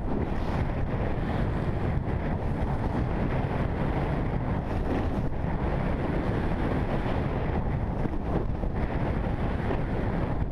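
Wind rushing over an action camera's microphone while skiing downhill, a steady low buffeting, mixed with the hiss of skis sliding over packed snow.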